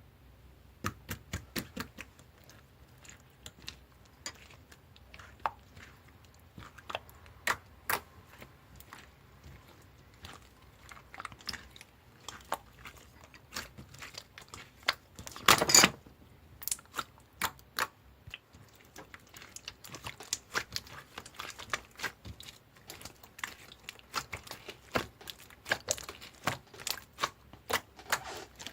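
Purple slime being squeezed and pressed by hand, making a steady run of irregular sticky clicks and small pops, with one louder crackling squish about halfway through.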